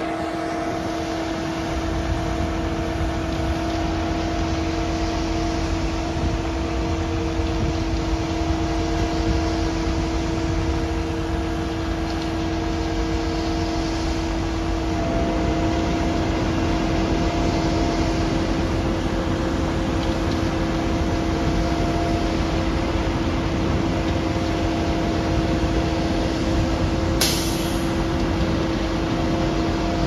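Concrete mixer truck running: a steady diesel rumble with a steady hum of several tones that shifts slightly about halfway through. A short hiss comes near the end.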